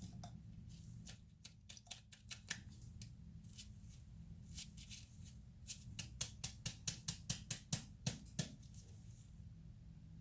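Small metal parts of a 6.0 Powerstroke diesel injector clicking and ticking as they are handled and fitted by hand: scattered clicks with one sharper click about a second in, then a quick run of about a dozen clicks, roughly five a second, near the end.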